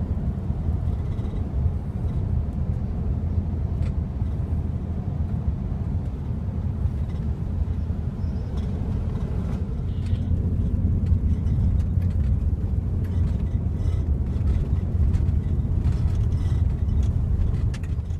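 Steady low road and engine rumble inside the cabin of a Nissan Patrol Y62 driving along. It cuts off abruptly at the very end.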